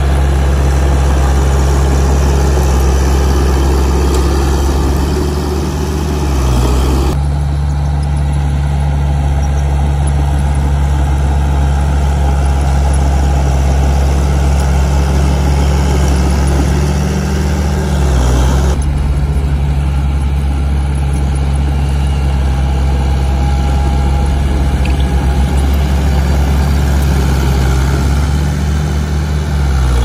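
Heavy diesel engine of earthmoving machinery running steadily, its pitch wavering briefly three times. The higher-pitched machine noise changes abruptly twice.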